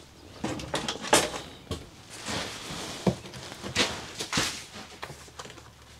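Plastic RV air-conditioner ceiling diverter being handled and test-fitted into a ceiling duct opening: a series of sharp knocks and taps, about half a dozen, with rustling and scraping between them.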